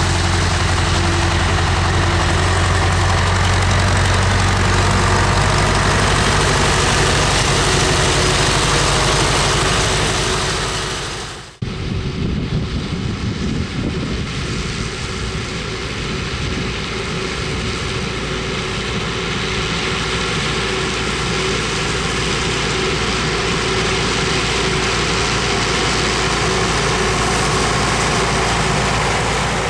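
Farm tractor diesel engine running steadily, then, after a sudden cut about 11 seconds in, a second stretch of tractor engine running with a rougher, lower sound.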